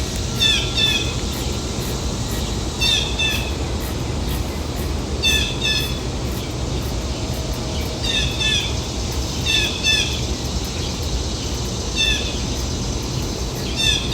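A bird calling repeatedly, a quick double call about every two seconds, over a steady low background rumble.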